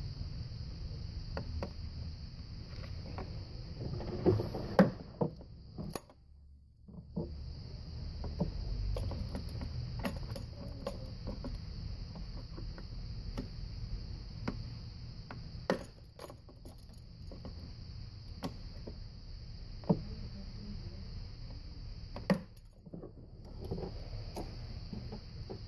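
Hand tool clicking and knocking against a plastic thermostat housing and its fittings in an engine bay, with scattered sharp clicks, a few louder ones, over a low rumble and a steady high hiss.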